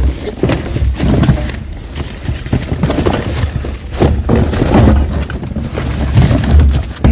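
Rummaging through a pile of discarded scrap: irregular clattering, knocking and rustling as wires, plugs and metal and plastic pieces are pulled out and moved about, over a steady low rumble.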